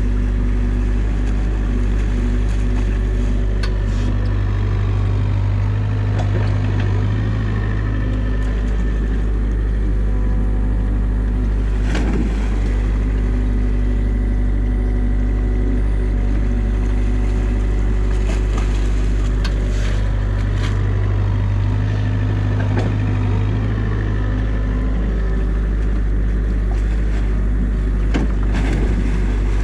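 New Holland mini excavator's diesel engine running steadily with the hydraulics working as the bucket digs through mud and debris in the water. A sharp knock comes about twelve seconds in and a few more near the end.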